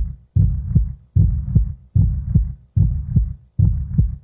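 Heartbeat sound effect: a steady lub-dub, each beat a pair of deep thumps, repeating a little more than once a second.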